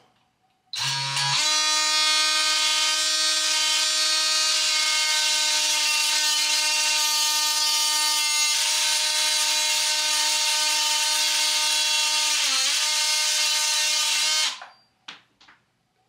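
DeWalt DCS356 brushless oscillating multi-tool running at a steady high pitch as its blade cuts through a metal screw. It starts about a second in, runs for about 13 seconds with a brief drop in pitch near the end as the blade loads up, then stops.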